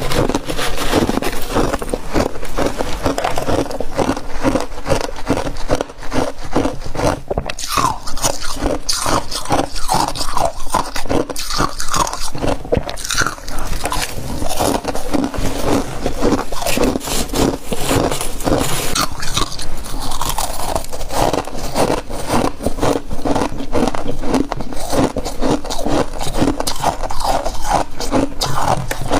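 Close-miked crunching and chewing of a mouthful of freezer frost: a dense, continuous run of crisp crunches and scraping sounds.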